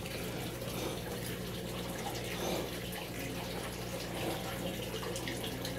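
Steady trickle of running water from an aquaponics system, with a steady low hum underneath.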